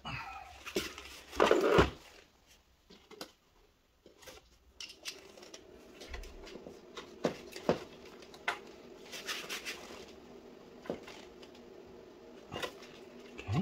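Scattered clicks, rustles and knocks of hands working among an electric scooter's wiring and plastic connectors, with a louder clatter about two seconds in.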